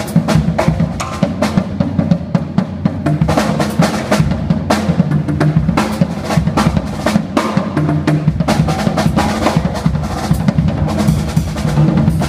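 Solo on a drum kit: a dense, unbroken stream of strokes across snare, toms, bass drum and cymbals, with fast rolls.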